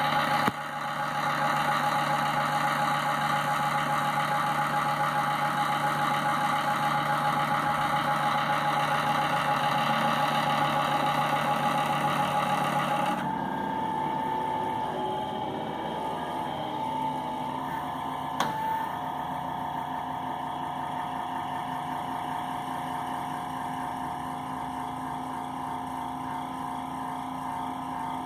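Power supply giving off a steady whining hum with a clear high tone, the noise its owner takes for a fault. About halfway through the sound drops a little and its tone shifts, and a single click comes a few seconds later.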